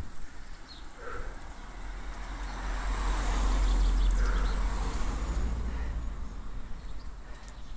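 A car passing close by on a narrow lane, its engine and tyre noise swelling to a peak about halfway through and then fading, heard over a low rumble on the head-mounted camera's microphone.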